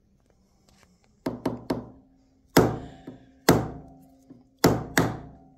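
Hammer striking a nylon punch to drive a night sight into the front-sight dovetail of a Desert Eagle slide held in a vise. Three quick light taps, then three harder strikes about a second apart, each followed by a brief ring.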